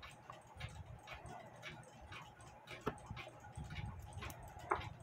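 A mechanical clock ticking steadily, about three ticks a second, over faint low rustle from the small movement being handled.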